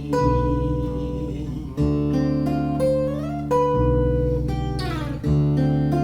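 Guitar playing an instrumental passage between sung verses, a new chord struck about every one and a half to two seconds and left to ring.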